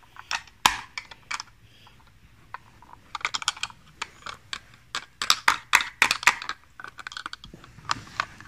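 Hard plastic clicking and clattering of a Paw Patrol Marshall toy fire truck being handled, with the Marshall figure lifted out of its seat. The clicks come in quick clusters, busiest near the middle.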